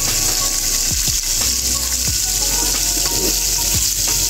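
Shrimp sizzling in melted margarine in a wok, a steady frying hiss.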